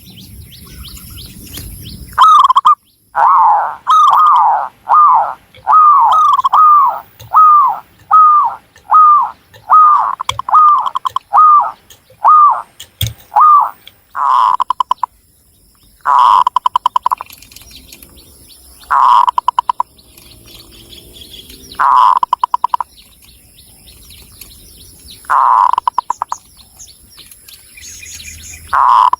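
Zebra dove (Javanese perkutut) cooing: a quick run of about fifteen short, bouncing coos, about two a second. Then it switches to single longer trilled coos every two to three seconds.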